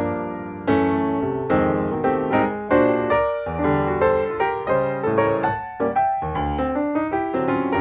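Background piano music: notes struck in a steady flowing rhythm over chords, each note fading after it is played.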